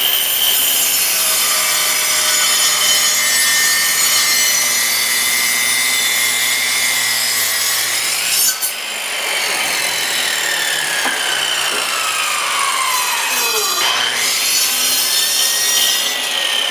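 Electric miter saw cutting through a thick block of pine, the motor whining under load as the blade grinds through the wood. The sound dips briefly about halfway, then the cut goes on, its pitch sagging and recovering near the end.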